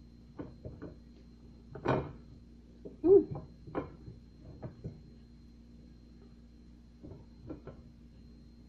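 Mouth noises of a person eating a banana straight off a plate without hands: irregular wet smacks and chewing sounds, with a short hummed grunt about three seconds in.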